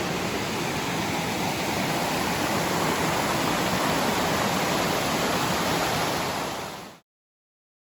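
Waterfall on Laurel Creek, water rushing in a steady, loud roar, cutting off suddenly near the end.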